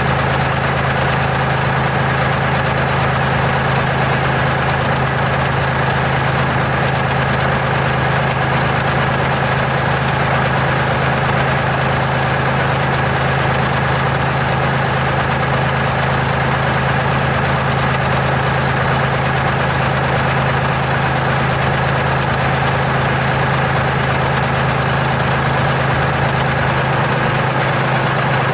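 Terex R-35 rigid haul truck's diesel engine idling steadily, with no change in speed.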